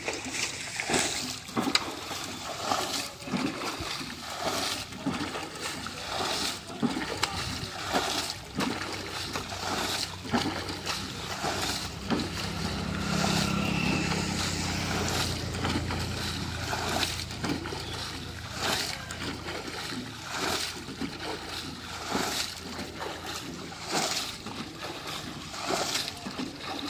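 Water being bailed from a shallow muddy pond with a tin can swung on two ropes: a splash and slosh about once a second as the can dips in and its water is thrown out over the bank. A low steady hum swells and fades for a few seconds midway.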